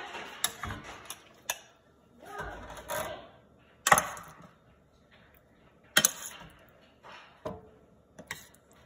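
Sharp metal clinks and taps, about six in all, as marinated chicken wings are set down on a wire rack in a metal sheet pan; the loudest come about four and six seconds in, with short bits of handling noise between them.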